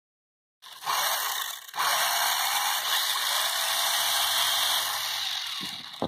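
Electric motor and gears of a homemade RC toy car whirring: a brief run, a short break, then a longer steady run.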